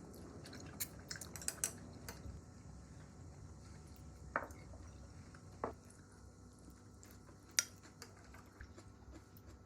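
Cutlery clinking and tapping against dishes during a meal, in scattered sharp clicks: a quick cluster in the first two seconds, then single clinks about four and a half, five and a half and seven and a half seconds in, the last the loudest.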